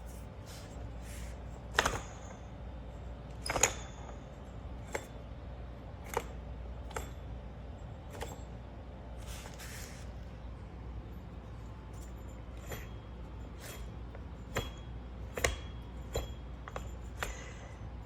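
Hand tools and small metal hardware being handled on a workbench: scattered clicks and light metallic clinks, the loudest two about two and three and a half seconds in, over a low steady hum.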